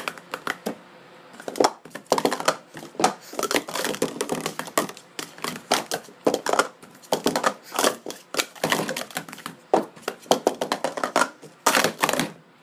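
Speed Stacks Pro Series 2 hollow plastic stacking cups clattering in fast runs of clicks and knocks as they are upstacked and downstacked on a mat through a full sport-stacking cycle. The clatter stops shortly before the end.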